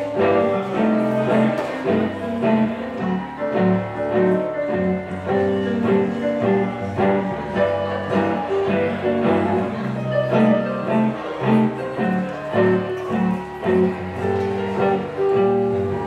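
Instrumental break in a live blues song: a hollow-body electric guitar and a red stage keyboard playing together without vocals, with low bass notes moving at a steady pace under the melody.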